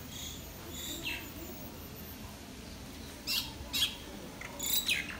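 Birds calling: a few faint chirps in the first second, one sliding down in pitch, then a run of louder, sharp chirps from about three seconds in.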